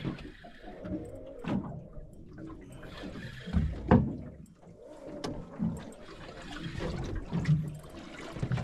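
Water sloshing and slapping against a small boat's hull in an uneven rhythm, with a few scattered knocks, the loudest about four seconds in.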